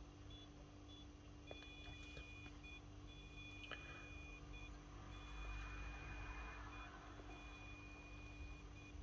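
Faint high-pitched whine from a T12 soldering iron handle as the station's PID control pulses the heater, cutting in and out irregularly, over a steady low hum.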